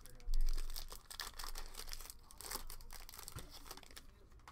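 Foil wrapper of a trading-card pack being torn open and crinkled, a crackle of many small snaps, with a dull bump near the start.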